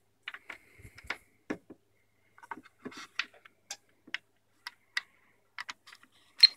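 Scattered small clicks and taps of hard plastic being handled, as a JST-XH balance plug is pushed onto the pins of a LiPo cell checker.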